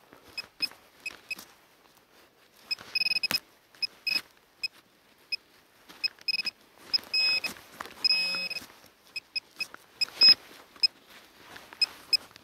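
Metal detector beeping at a buried metal target: short beeps all at the same high pitch, coming at an irregular rhythm, with a few longer held tones around the middle. Scrapes and knocks of digging in soil come between the beeps, the loudest knock near the end.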